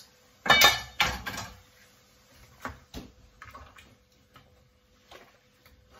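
Two loud metallic clanks of a stainless steel pot lid being lifted and set down, about half a second and a second in. These are followed by a few light knocks of a wooden spatula stirring broccoli in the boiling pot.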